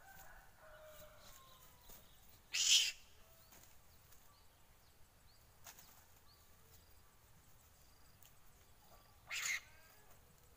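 Faint outdoor ambience with small birds chirping, broken twice by a short scratchy rustle, about two and a half seconds in and again near the end, from a man working in the grass while setting a bamboo spring-pole snare.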